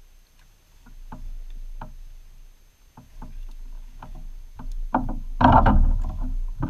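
Fishing rod, reel and line being handled aboard a plastic kayak: scattered light clicks and knocks, then a louder rough rustle for about a second, about five seconds in.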